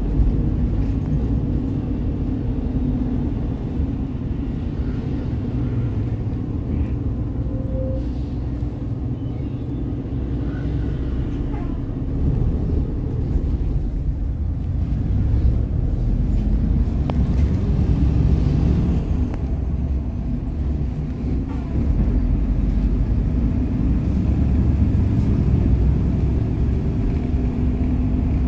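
Interior noise of a moving 2012 small village bus: the diesel engine hum and road rumble heard from a passenger seat inside the cabin. The level sags briefly about twenty seconds in, then picks up again as the bus pulls on.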